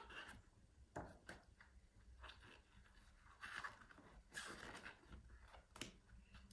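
Faint rustling and light taps of a picture book's paper pages being turned and handled, in a few short bursts between near-quiet.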